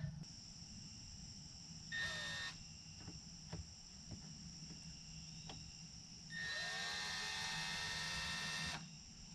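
Cordless drill motor run in two bursts: a short one about two seconds in, then a longer one of about two and a half seconds starting about six seconds in. Each burst spins up quickly, runs steady, then stops. A few light clicks fall between the bursts.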